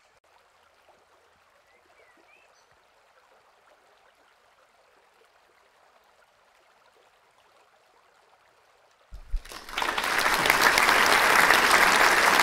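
Near silence with a faint hiss, then about nine seconds in loud applause breaks in suddenly.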